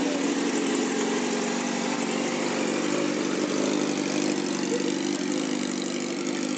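Sport motorcycle's inline-four engine idling steadily.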